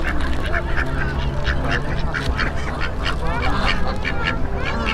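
Ducks and geese quacking and honking, many short calls overlapping several times a second, over a steady low rumble.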